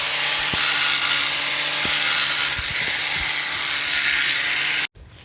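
Power grinder running continuously against a broken steel wheel stud, a steady harsh grinding noise with a few knocks, cutting off suddenly near the end.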